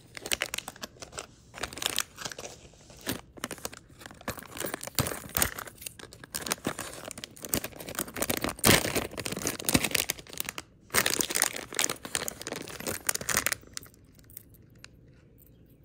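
Plastic and foil fishing-lure packets crinkling and rustling as they are handled, in irregular bursts that stop shortly before the end.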